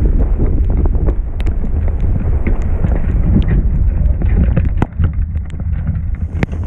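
Wind buffeting a microphone at the top of a sailboat's mast: a steady low rumble, with many short sharp ticks and knocks scattered through it.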